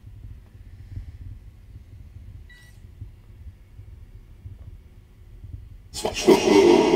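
Low room hum with a short faint electronic beep about halfway in, then about six seconds in a sudden loud, harsh, static-laden electronic voice-like sound. It comes out of a ghost-hunting device's speaker and is captioned as the words 'svart sko' (black shoe). The investigators hear it as a dark, unpleasant spirit voice.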